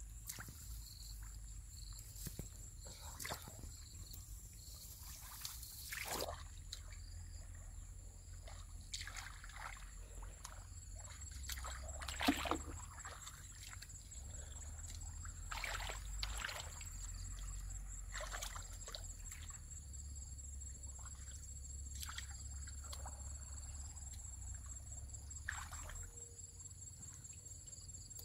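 Shallow muddy water sloshing and splashing irregularly as someone wades and gropes with their hands along the bank, with one louder splash about halfway through. A thin steady high-pitched tone runs underneath.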